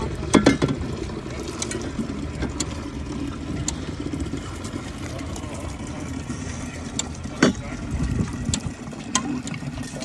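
Handling knocks from a plastic water bottle and hands working a drinking-water fountain, over a steady low rumble. The loudest knocks come about half a second in and again at about seven and a half seconds.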